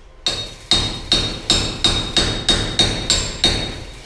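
Hammer blows in a steady rhythm, about three a second, each with a bright ringing note, as a worker hammers overhead at the ceiling framing.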